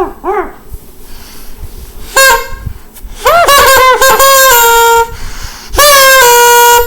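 A horn honked three times, loudly: a short honk, then a long stuttering one, then a last long one, each dropping a step in pitch as it ends.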